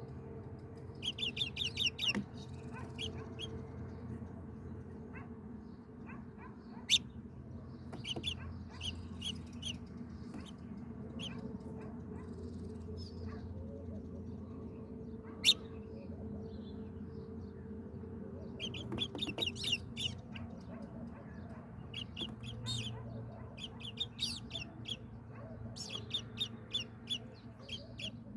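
Small birds chirping in short bursts of rapid, high chirps that recur throughout, over a steady low hum. Two sharp clicks, about seven seconds in and about halfway through, are the loudest sounds.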